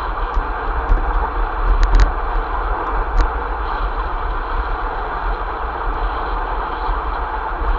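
Steady rumble of wind on the microphone and road noise from a vehicle travelling along a paved road, with a few sharp clicks or rattles about two seconds in and again about a second later.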